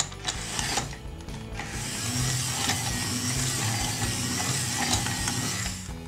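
Plastic toy police car: a few sharp plastic clicks, then from about two seconds in a steady whirring and ratcheting of its small gears as it rolls across the table, stopping shortly before the end.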